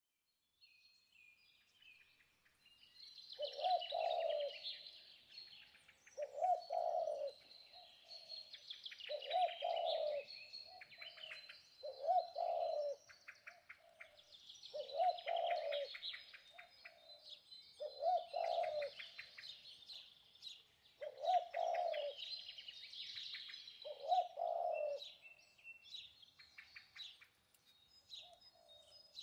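Birdsong: a low call repeated about every three seconds, over steady high chirping and twittering of small birds.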